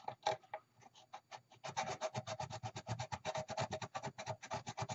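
Hand scraping of excess J-B Weld epoxy off the repaired edge of a Bakelite radio cabinet. It starts as a few scattered strokes, then from under two seconds in becomes a steady run of quick back-and-forth strokes, about eight a second.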